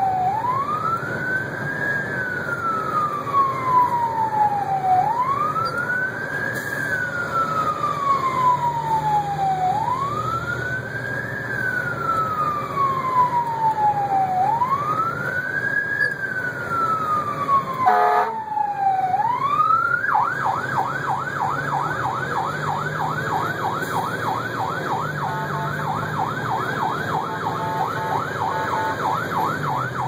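Rescue truck's siren running code 3, heard from inside the cab over the truck's engine: a slow wail rising and falling about every five seconds, then, about two-thirds through, switching to a rapid yelp. A brief low tone sounds just before the switch.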